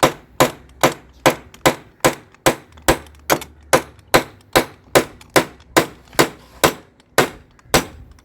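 A hammer driving a large nail into timber with steady, evenly spaced blows, about two and a half a second.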